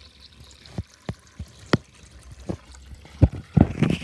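Tap water trickling and splashing into a small plastic baby bath, with scattered drips. A few louder knocks come near the end.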